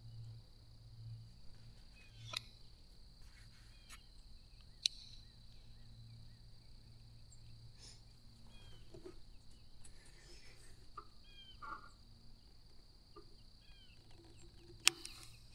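A steady high drone of insects with scattered short bird chirps over it. A few sharp clicks and knocks come while the shotgun is handled, the sharpest just before the end.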